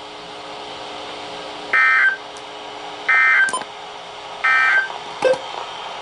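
Three short identical bursts of NOAA Weather Radio SAME digital data tones from a weather radio's speaker, evenly spaced about a second and a half apart: the end-of-message code that closes the station's weekly test broadcast. A couple of faint clicks follow near the end.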